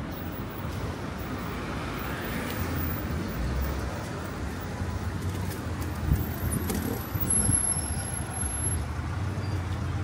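Road traffic on a town street: cars passing with a steady low rumble, and a short knock about six seconds in.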